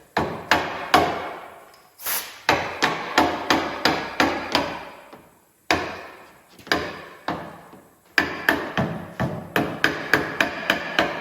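Hammer blows in several quick runs with short pauses between them, each strike ringing briefly.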